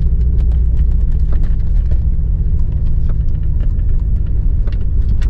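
1997 Chevrolet Corvette's LS1 V8 running steadily under light throttle as the car rolls along slowly, heard from inside the cabin as a low rumble. Scattered small clicks and knocks sound over it.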